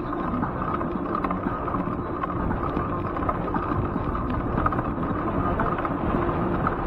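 Steady wind rushing over the microphone of a camera riding on a moving bicycle, with the bicycle's tyres rolling on asphalt.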